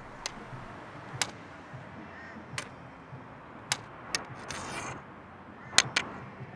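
White cane tip tapping on a concrete footpath, a sharp tap about every second with two quick double taps, over a steady hiss of street background.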